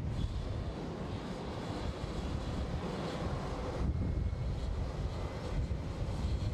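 Boeing 747-400 airliner taxiing, its four jet engines running at low taxi power: a steady rumbling hiss.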